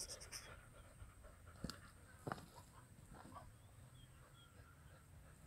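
Faint dog panting, with two short sharp knocks about two seconds in.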